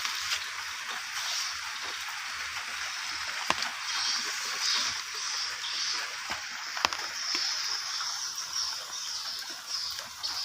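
Rain falling steadily, a continuous hiss with a few sharp drip-like taps.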